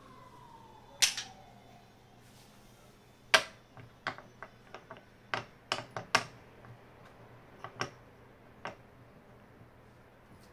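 Irregular sharp clicks and knocks of a small stack of round wooden discs being handled, set down and shifted on a desktop, with the loudest knock about three seconds in. A faint falling squeak dies away in the first couple of seconds.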